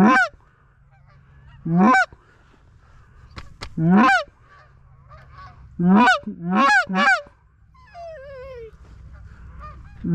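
Loud goose honks, singly and then three in quick succession, each a short call that sweeps in pitch. Fainter goose calls sound in the distance near the end.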